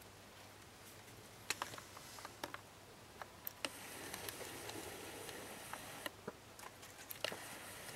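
Faint scattered clicks and ticks with a stretch of rustling in the middle, from gray short-tailed opossums scrabbling about on bark and wood-chip bedding, over a low steady hum.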